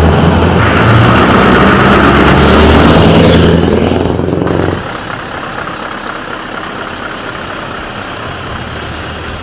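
Scania R620 truck's V8 diesel engine running loud and steady as the truck pulls away, with a hiss that falls in pitch about three seconds in. The engine sound cuts off abruptly about five seconds in, leaving a quieter steady hiss.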